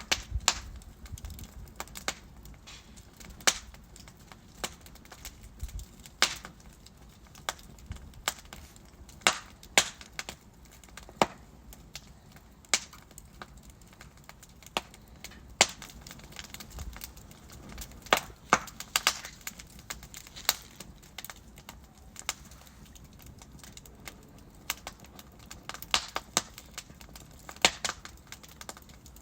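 Wood fire in a fireplace crackling: irregular sharp pops and snaps from burning logs, some clustered in quick runs, over a faint steady hiss.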